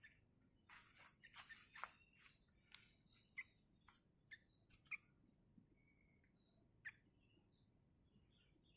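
Faint, short, sharp bird chirps, about a dozen, bunched in the first five seconds with one more near the middle.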